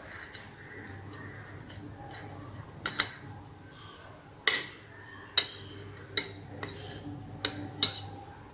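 Knife clinking against a ceramic plate about six times, starting about three seconds in, as a cake is cut into and a slice is worked loose.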